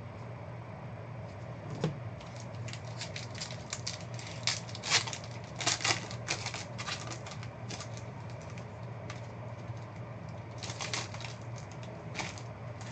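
Foil trading-card pack wrapper being torn open and crinkled by hand: irregular crackling in two spells, the longer and louder one a couple of seconds in and a shorter one near the end.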